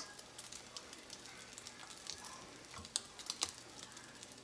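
Egg-soaked bread frying in melted butter-flavored shortening in a stainless steel pan: a steady sizzle with many small crackling pops. A few sharper clicks stand out about three seconds in.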